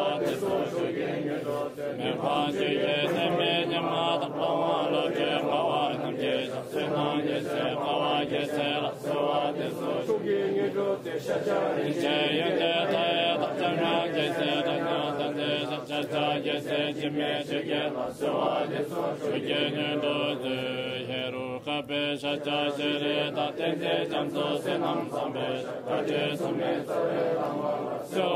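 Tibetan Buddhist chanting: a voice reciting prayers or mantras in a steady, unbroken flow.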